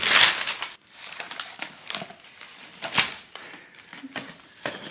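Gift-wrapping paper crinkling and ripping as a dog tears open a wrapped present: a loud tearing sound at the start, smaller crackles, and another sharp rip about three seconds in.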